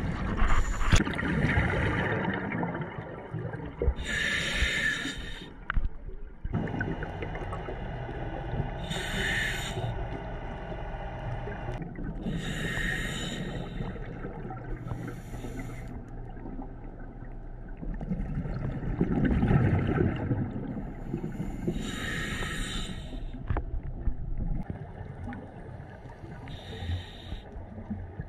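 Scuba diver breathing through a regulator underwater: short hissing inhalations every few seconds, and bursts of exhaled bubbles bubbling past the camera, loudest a couple of seconds in and again near the twenty-second mark.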